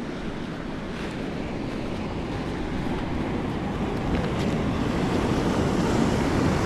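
Sea surf washing on the shore, mixed with wind buffeting the microphone, slowly growing louder.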